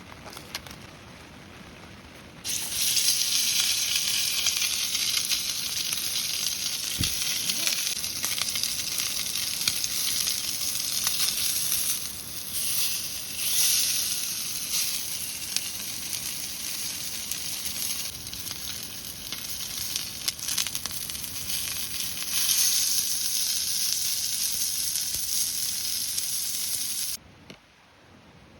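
Food sizzling as it fries in a hot pan. It starts suddenly a couple of seconds in and cuts off shortly before the end.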